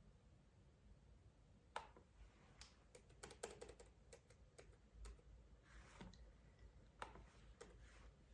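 Near silence broken by faint, scattered clicks and taps, with a quick cluster of several about three to four seconds in and a soft rustle around five to six seconds in.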